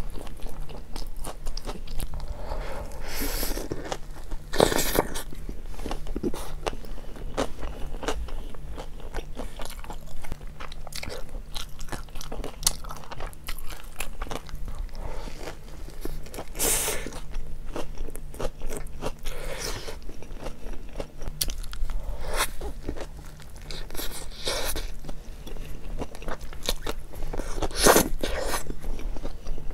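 A person biting into and chewing a hot dog in a bun topped with chili sauce: a continuous run of small wet mouth sounds, with louder bites about five seconds in, midway and near the end.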